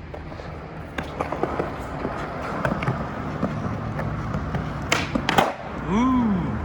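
Skateboard wheels rolling on pavement, then two sharp wooden clacks about half a second apart near the end: the board popping a trick and coming back down.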